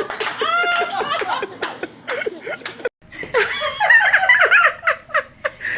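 People laughing in short repeated bursts. The sound breaks off abruptly about three seconds in, then more laughter follows in higher voices.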